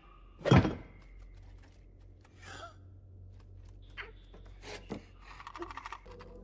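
Groot gasping sharply about half a second in, followed by a short wavering vocal sound and a few light clicks and taps.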